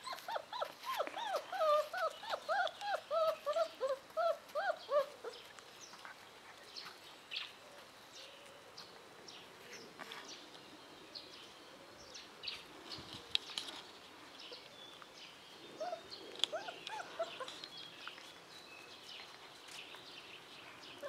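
Five-week-old Bernese mountain dog puppy whining in a quick string of short, high yelps for about five seconds, then a few more yelps later on.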